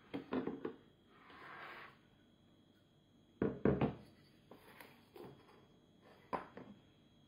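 Espresso machine portafilter and stainless-steel filter baskets being handled and set down on a wooden table: a series of sharp metal clicks and knocks, the loudest pair of clatters about three and a half seconds in. A brief soft rustle comes about a second in.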